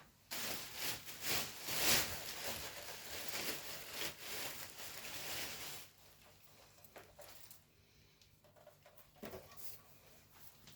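Scratchy rustling and scraping with many small clicks as server hardware is handled, lasting about six seconds, then a few soft clicks.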